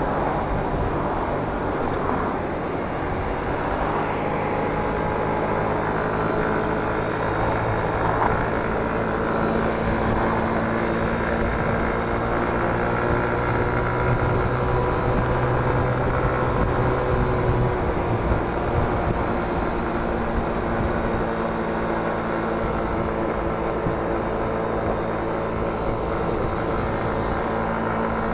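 Motor scooter's engine running steadily under way, its pitch drifting gently up and down as the speed changes.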